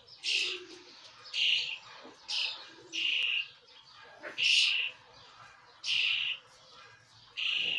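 Emu chicks peeping: short, high calls repeated about once a second, seven in all.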